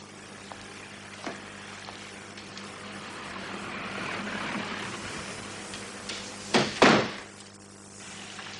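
A wooden door shut: two sharp knocks close together about two-thirds of the way through, the door meeting its frame and the latch catching, over a soft steady hiss.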